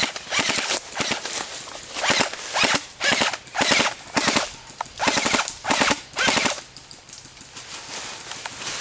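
Airsoft guns firing on full auto in a series of short rapid bursts, each a fast rattle of shots; the bursts ease off near the end.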